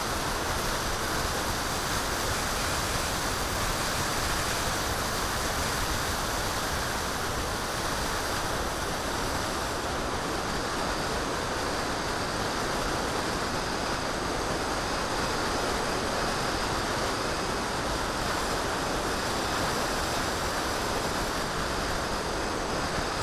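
Steady rush of airflow over the onboard camera's microphone as the FX-61 Phantom flying wing glides with its electric motor off; no motor tone is heard.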